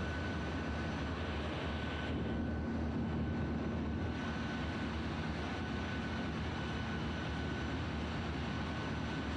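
Steady drone of ship's engine-room machinery: a low hum with a thin, steady high whine over it, turning briefly duller about two seconds in.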